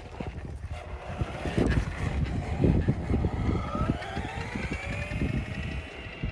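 Kid Galaxy 20V Power Drive RC monster truck driving off under throttle, its electric motor whining and rising in pitch as it speeds up from about three and a half seconds in, over an irregular low rumble.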